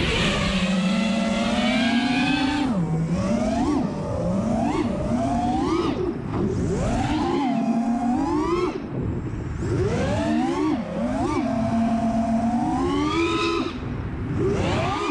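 Four iFlight Xing 2306 2450kv brushless motors on a 4S FPV quadcopter, whining with their propellers. The pitch rises and falls sharply, again and again, as the throttle is punched and chopped.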